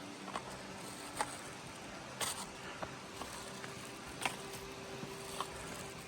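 Footsteps on a rocky trail: irregular sharp steps about once a second over a steady outdoor hiss.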